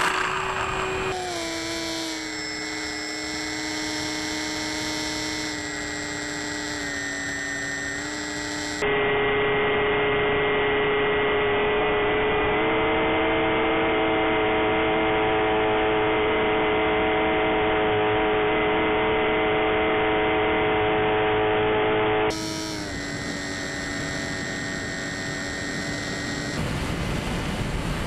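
Brushless electric motor and propeller of a Bixler 3 foam RC plane whining steadily in flight, heard through the onboard camera, its pitch stepping up and down a few times with the throttle. For about thirteen seconds in the middle the whine turns duller and louder, and wind rush rises near the end.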